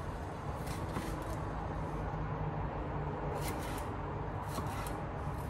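A knife slicing bell peppers on a cutting board: a few faint, crisp cuts over a steady low hum.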